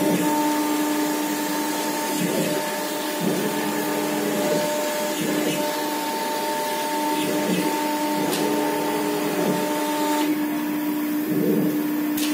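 Single-spindle 5.5 kW CNC router carving a white sheet: a steady spindle whine over the hiss of the bit cutting, the tone wavering and dipping briefly now and then as the head moves.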